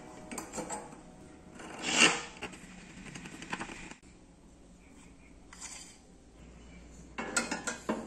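Small steel parts handled on a steel workbench: light metal clinks, knocks and scrapes, with one louder scrape about two seconds in and a quick run of clicks near the end.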